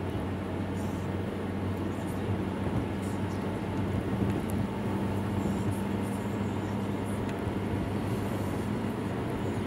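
Steady cabin noise of a car cruising at highway speed, about 100 km/h: an engine drone with tyre and road noise, heard from inside the car.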